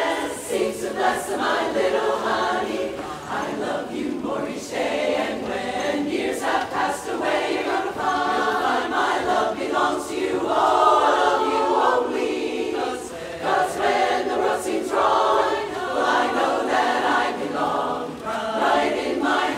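Women's barbershop chorus singing a cappella, many voices in sustained harmony.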